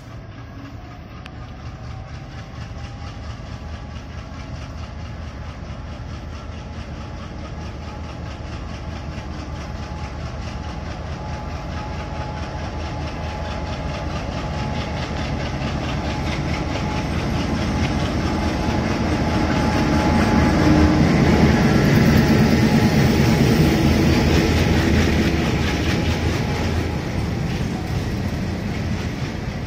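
Broad-gauge diesel-electric locomotive hauling a freight train, its engine running steadily and growing louder as it approaches, peaking about two-thirds of the way through and then easing slightly as it passes. Its wheels click over the rail joints.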